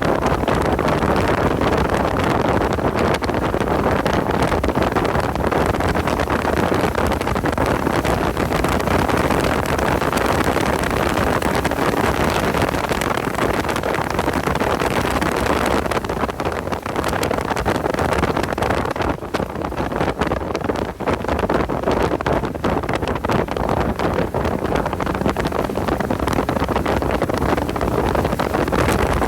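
Porsche 986 Boxster's flat-six engine running hard at track speed, heard from inside the car with heavy wind noise on the microphone; the sound eases briefly about two-thirds of the way through.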